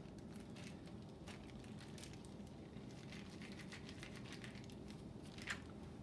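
Faint crinkling and rustling of a plastic zip-lock sandwich bag as it is zipped shut, pressed flat to push the air out, and lifted, with one sharper crinkle about five and a half seconds in.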